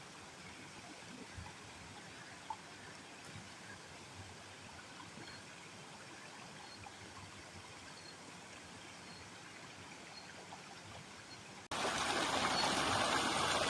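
A mountain stream trickling, quiet and steady. Near the end it cuts abruptly to a much louder rushing noise.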